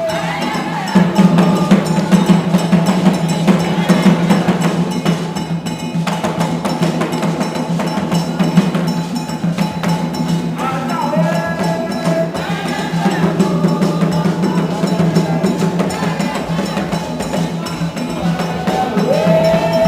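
Percussion-led dance music with drums and a bell or wood-block pattern keeping a steady rhythm, accompanying an Èyò masquerade dance. Gliding melodic lines come in about halfway through and again near the end.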